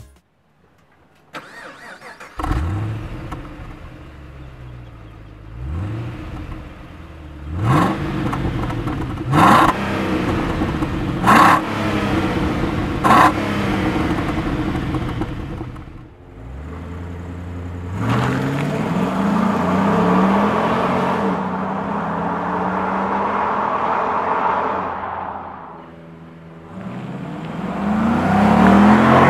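2014 Holden VF Calais V's 6.0-litre V8 starting up about two seconds in, then revved in several sharp throttle blips through its exhausts. In the second half the car accelerates, the engine note climbing, easing off, and climbing again near the end.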